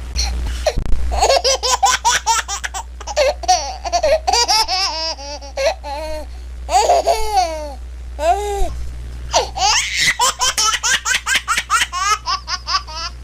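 A baby laughing and giggling in quick, high-pitched bursts, with a couple of longer drawn-out calls past the middle, over a steady low hum.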